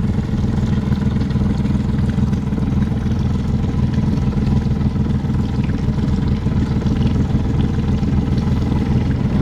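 Boat engine running steadily at low cruising speed, an even low hum that holds the same pitch and level throughout.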